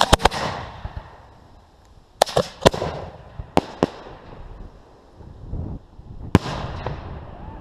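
Fireworks going off in sharp bangs: a quick cluster of three or four reports at the start, a group of about five bangs between two and four seconds in, and a single loud bang near the end.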